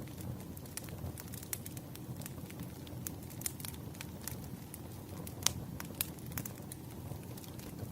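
Wood fire burning, with a steady low rumble and frequent sharp crackles and pops of the firewood, two louder pops about five and a half and six seconds in.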